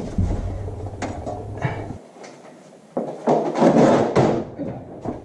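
A person shifting on a mechanic's creeper under a truck: a few knocks, then a scraping rush for about a second near the end as the creeper rolls and scrapes over the concrete floor.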